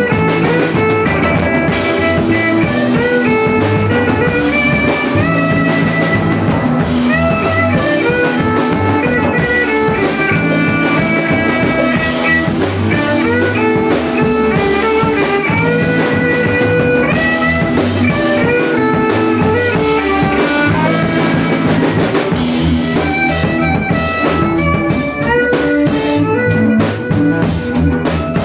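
A band jamming live and loud: electric guitar playing sustained melodic lines over bass guitar and a drum kit. The cymbals come through more near the end.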